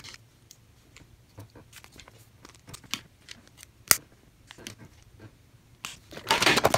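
Hard plastic toy stadium parts being handled: scattered light clicks and rustles, a single sharp click about four seconds in, and a short burst of rustling and scraping near the end.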